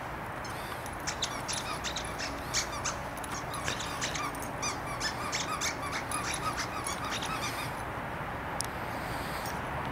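Squeaker in a plush dog toy squeaking over and over in quick short squeaks as the dogs chew and tug at it, from about a second in until near the end.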